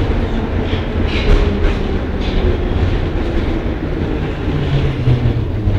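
Interior of a Soviet-built metro car running through a tunnel: a steady loud low rumble with scattered clicks and clatter from the wheels on the track. Near the end, a low hum falls slightly in pitch.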